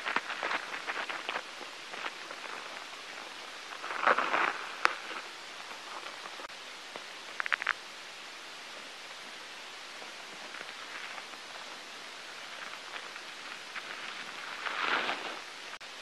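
Steady hiss with a few short bursts of rustling and crackling, the loudest about four seconds in and again near the end, and a quick run of clicks about seven and a half seconds in.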